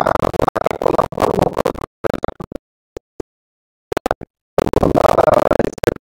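A man's voice, chopped and garbled by audio dropouts, cutting out to dead silence for about two seconds in the middle and coming back near the end.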